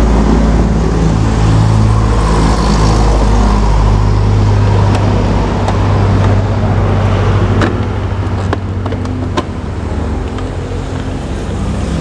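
An engine running at a steady idle, a loud low hum that eases slightly about two-thirds of the way through, with a few sharp clicks near the end.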